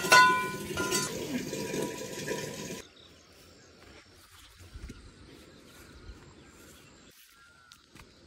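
Metal pots and utensils clinking and ringing at a kitchen stove, over a low murmur, cutting off abruptly about three seconds in. Then quiet outdoor ambience with faint rustling footsteps on a grassy path and a faint bird chirping near the end.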